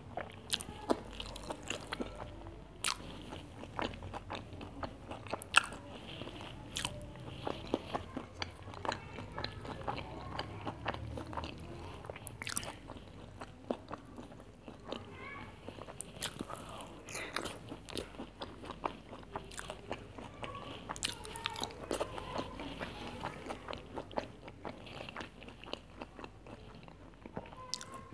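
Close-miked eating sounds: biting into and chewing a chicken zinger burger, with many sharp crunches and mouth clicks at an irregular pace.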